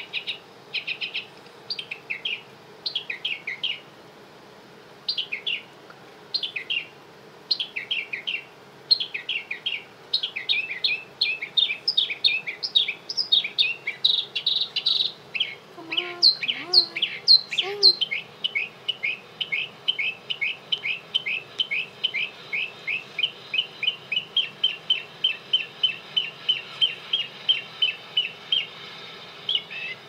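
Recorded songbird chirps played back near the caged budgies: bursts of quick high chirps and trills that settle into a fast, even run of about three chirps a second in the last third. A lower, wavering call sounds briefly about halfway through.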